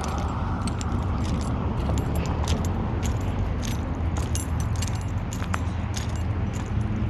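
Irregular light metallic jingling and clicking, like keys jangling, over a steady low rumble.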